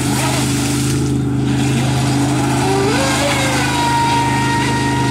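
Joysway Invincible Razor RC speedboat's six-cell electric motor running flat out, its high whine gliding up and down in pitch as the boat makes a pass and turns. A steady low hum runs underneath.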